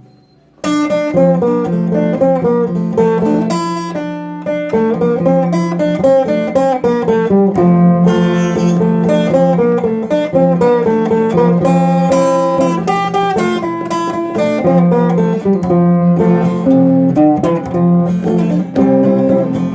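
Instrumental introduction of a song, led by plucked acoustic guitar over a steady bass, starting about a second in.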